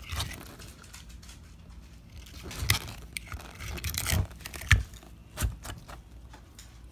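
Savannah monitor lizard biting into and shoving a raw egg around in its bowl: eggshell scraping and crunching, with several sharp knocks of the egg against the bowl, the loudest about two-thirds of the way in.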